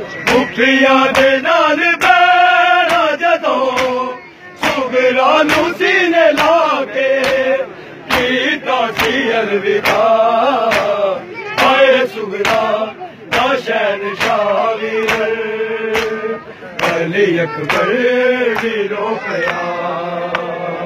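A male voice chanting a Punjabi noha lament for Ali Akbar, answered by a crowd of men, over the steady rhythm of matam: bare-chested mourners striking their chests with open hands in time.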